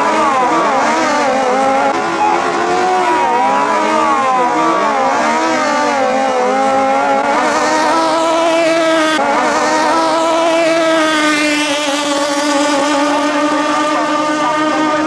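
Two racing speedboats with 650 cc jet-ski engines revving hard as they launch, their engine notes rising and falling against each other for the first several seconds. They then settle into a steady high-pitched drone at full throttle as the boats race away.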